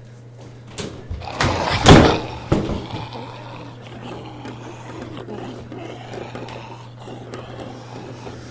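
A burst of loud bangs and thuds against a bathroom door, several blows about one to three seconds in, the loudest near two seconds. A steady low hum runs underneath.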